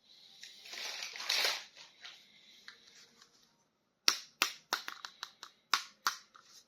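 Plastic crinkling for about two seconds, then, from about four seconds in, a run of about eight sharp clicks, roughly three a second, from plastic toys or packaging being handled.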